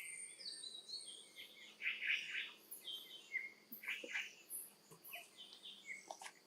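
Birds chirping: many short chirps and whistles at different pitches, one after another.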